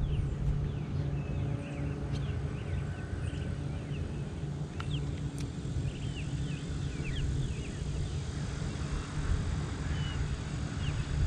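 Birds chirping, many short falling calls, over a steady low rumble, with a few faint clicks.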